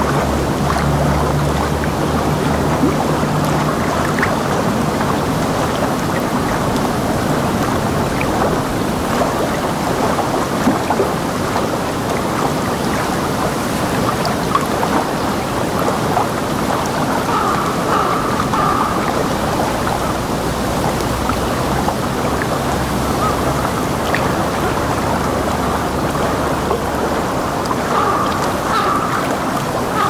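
A steady, unbroken rush of water noise with its weight in the low and middle range.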